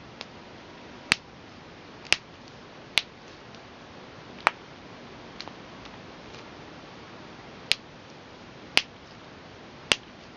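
Finger knuckles cracking: a series of sharp single pops, about seven loud ones, roughly one a second, with a pause of about three seconds midway and a few fainter pops between.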